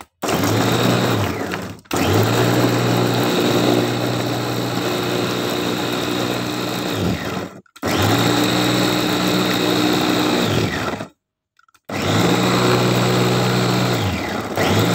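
Electric food chopper, its motor unit sitting on top of the bowl, grinding spices with water into a paste. It runs in four runs of a few seconds each, with short stops between, and its motor whines up at each start and winds down at each stop.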